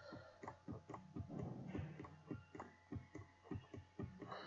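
Light, irregular clicks and taps of a computer keyboard and mouse, about three or four a second.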